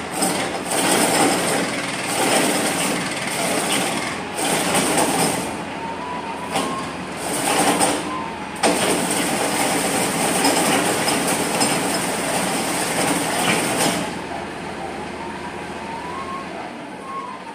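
Tractor engine running loud, driving a tractor-mounted post-hole auger used for digging pits, surging up and down before easing off about fourteen seconds in.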